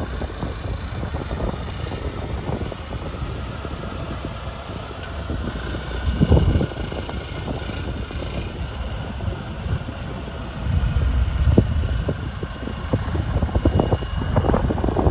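Backhoe loader's diesel engine running while the machine works, a steady low rumble that grows louder in a surge about six seconds in and again from about eleven seconds on.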